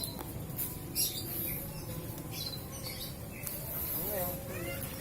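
Small bird chirping in short, high notes at intervals, with a brief pitched call that rises and falls about four seconds in.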